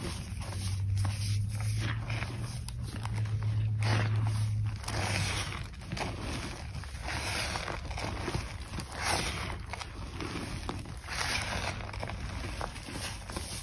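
Lumps of reformed gym chalk squeezed and crumbled by hand into loose chalk powder: irregular soft crunching and crumbling, ending with powder sifting through the fingers. A low hum runs underneath for the first few seconds.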